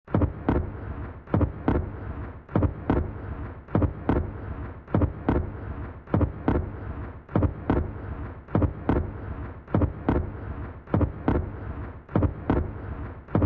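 Heavy thumps in pairs, the two about a quarter second apart, repeating evenly about once every 1.2 seconds over a continuous low rumbling noise.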